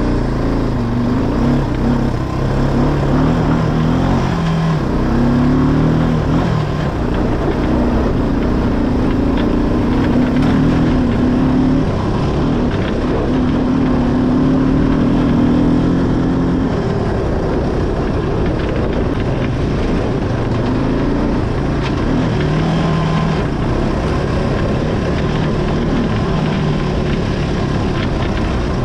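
ATV engine running under varying throttle while riding off-road, its pitch stepping up and down every few seconds over a steady rush of ride noise.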